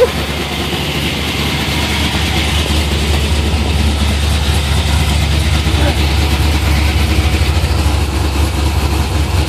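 Car engine idling steadily through a newly fitted 3-inch true dual exhaust, a deep, even drone.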